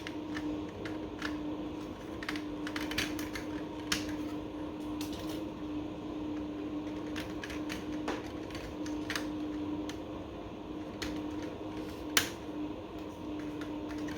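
Irregular clicks and taps of modular wine rack connector and holder pieces being handled and slid together, with one sharper click about twelve seconds in, over a steady low hum.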